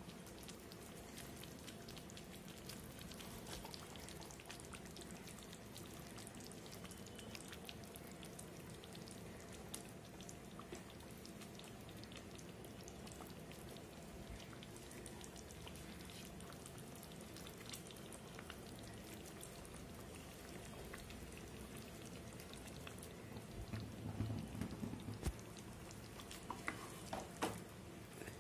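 Spicy onion-tomato fish gravy simmering in a kadai: a faint, steady bubbling with many fine pops. Near the end come a few louder soft knocks and bumps as the wooden spatula and fish are moved in the pan.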